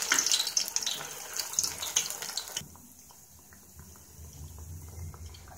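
Sweetcorn pakoda batter sizzling and crackling in hot oil as it deep-fries. About two and a half seconds in it drops suddenly to a much quieter, gentle bubbling of the pakodas frying.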